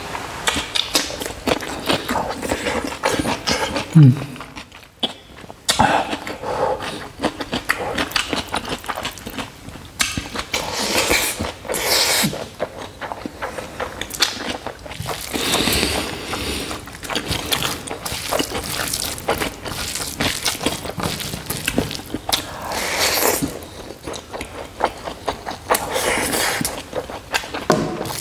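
Close-miked eating sounds of a person eating rice and pork curry by hand: wet chewing and lip smacking, with the squish and rustle of fingers working the rice and curry. A short low voiced grunt comes about four seconds in.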